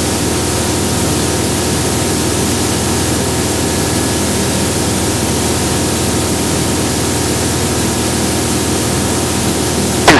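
Steady cabin noise of a Remos GX light-sport aircraft in a full-throttle climb: the Rotax 912 engine and propeller drone low under a loud, even hiss of airflow.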